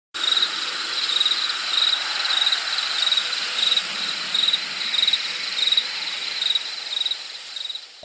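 Night insects chirping: a cricket-like pulsed chirp repeating about twice a second over a steady high-pitched hiss.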